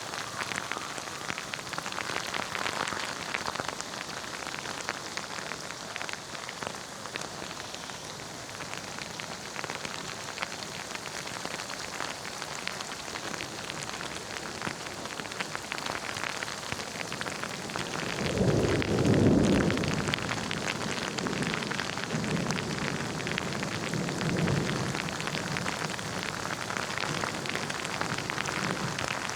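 Steady rain falling in a thunderstorm. A little past the middle a roll of thunder rumbles in, loudest a second later, then trails off over several seconds.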